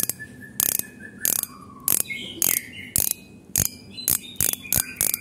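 Spool clicker of a Shimano Ultegra 4000 spinning reel clicking as the spool is turned by hand: about a dozen sharp clicks, unevenly spaced and coming faster near the end. The clicker has been fitted with a slightly stiffer spring from a lighter to make it louder.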